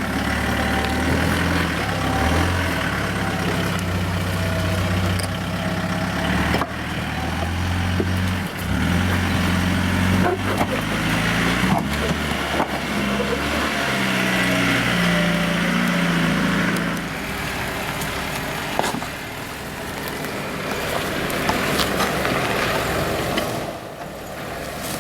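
Petrol engine of a manual 2009 Jeep Wrangler JK revving up and down unevenly as it crawls over a rocky obstacle, easing off about two-thirds of the way through. Without crawler gears, steady throttle control at crawl speed is hard.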